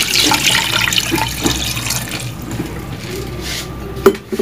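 Water poured from a jug into a steel pressure cooker over raw beef pieces, splashing loudly and then tapering off after about two seconds. Two sharp knocks near the end.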